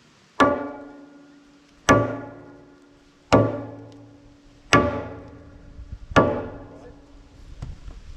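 Five evenly spaced hammer blows on metal, about one and a half seconds apart, each one ringing out with a clear tone that dies away before the next.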